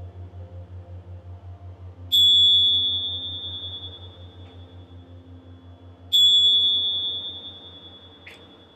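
Tingsha cymbals struck together twice, about four seconds apart. Each strike rings out in a clear, high, bell-like tone that fades slowly, over a low pulsing drone. The chime marks the close of the meditation.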